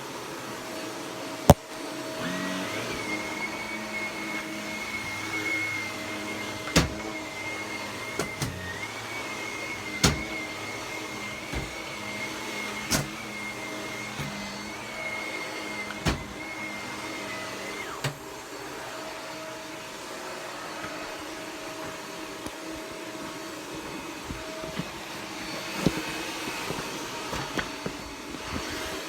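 Vacuum cleaner with a powered brush head running steadily. A high whine comes in about two seconds in and stops about two-thirds of the way through, and several sharp knocks are heard.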